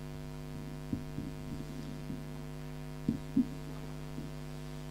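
Steady electrical mains hum in the microphone's sound system, with a few soft knocks of handling, two close together about three seconds in.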